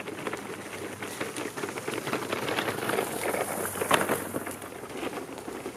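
Stroller wheels and footsteps crunching over dry leaves and twigs on a dirt trail: a dense crackle that swells as they pass close by, with a sharp snap about four seconds in, then eases off.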